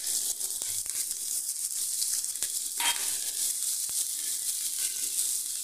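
Chopped onion and green chillies sizzling in hot oil in a nonstick frying pan, with light clicks and scrapes of a spatula stirring them and a brief louder scrape about three seconds in.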